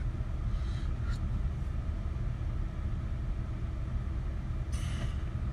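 Truck engine running steadily with a low rumble, heard from inside the cab, with a brief hiss near the end.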